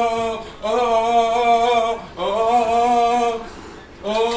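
A voice holding a long, loud, open-mouthed cry at a steady pitch, sung-out rather than spoken, repeated in notes of about a second and a half with short breaks between them.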